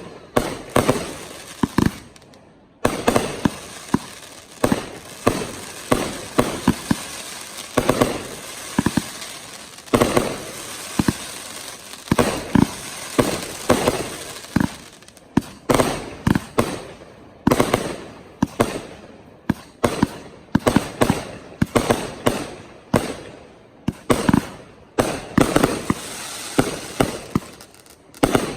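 Professional 1.3G display fireworks going off in quick succession: sharp bangs, several a second in clusters, with crackling between them. A brief lull comes in the first three seconds, then the barrage resumes with a loud bang.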